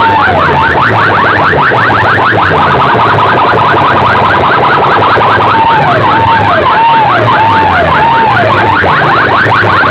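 Car-alarm-style electronic siren effects blasted through a large competition sound system. A warbling tone alternates with runs of rapid rising chirps, over a repeating low bass pulse.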